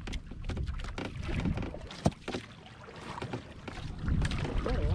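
Wind buffeting the microphone and water moving around a small boat out on a rough sea, with a sharp knock about two seconds in. It gets louder in the last second.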